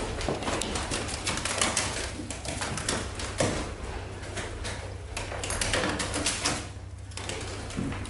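Trapped pigeons beating their wings against a window pane, a rapid irregular flutter and clatter of wingbeats with a short lull about seven seconds in.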